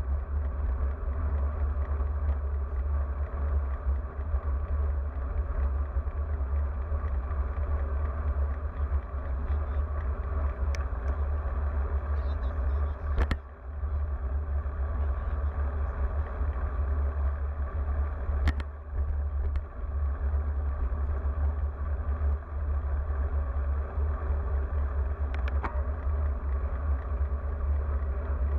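Wind buffeting the microphone of an action camera mounted on a road bike at speed: a steady heavy low rumble mixed with tyre noise on asphalt, broken by a few brief sharp knocks.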